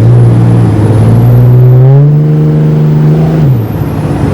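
Cummins turbo-diesel truck engine pulling under acceleration. Its note rises about a second and a half in, holds, then drops back near the end as the throttle comes off, with a high turbo whistle rising and falling over it.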